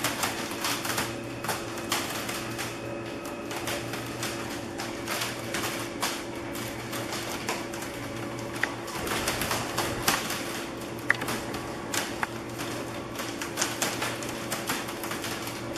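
Home-built CNC plasma table's gantry drive motors moving the torch head over the steel plate in a dry run, the plasma not firing: a steady hum under rapid, irregular clicking and ticking.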